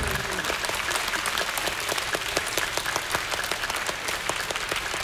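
Audience applauding, a dense, even patter of many hands clapping, as the last note of the music dies away at the start.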